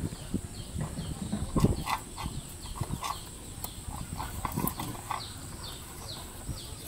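Puppies eating dry kibble: irregular small crunches, clicks and taps as they chew and nose the food and a metal bowl. A run of short, high, falling chirps comes in over the second half.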